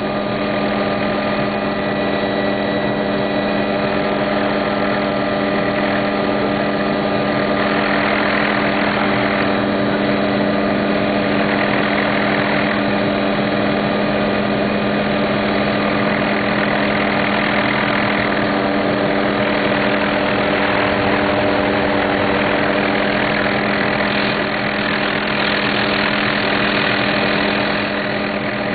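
Helicopter engine and rotor running steadily, heard from inside the cabin: a constant droning hum with a rushing hiss that swells and fades several times.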